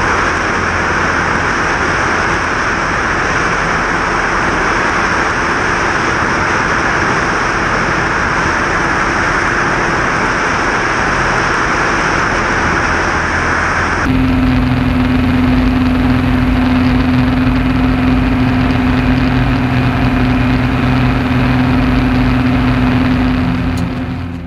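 Vans RV-6 light aircraft in cruise: engine and propeller running steadily under loud rushing slipstream wind. About fourteen seconds in, the sound changes abruptly to the steadier drone heard inside the cockpit, with a strong steady hum, and it fades near the end.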